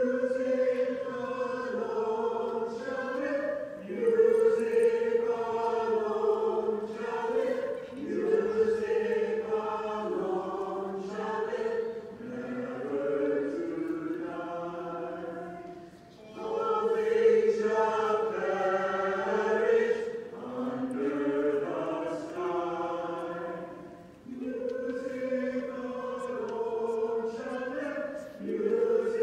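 A choir singing in harmony in long held phrases a few seconds each, with brief breaks between them, played back from a video over room speakers.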